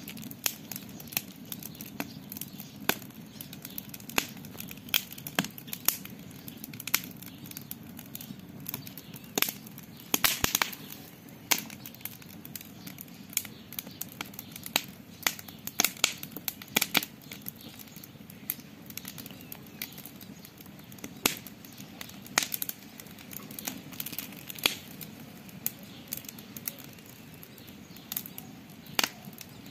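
Campfire crackling: irregular sharp pops and snaps over a low, steady rush of burning, with a quick flurry of pops about ten seconds in.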